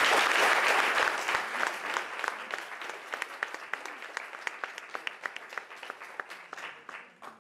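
Audience applauding, loudest at the start and gradually thinning out to scattered single claps that stop near the end.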